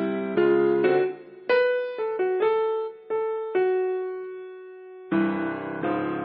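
Background piano music: a slow melody of struck notes that each ring and fade, with one note held longer about midway through.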